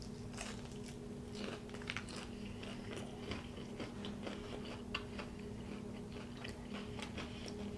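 Close-miked chewing of a crispy battered onion ring, with irregular small crunches and wet mouth clicks.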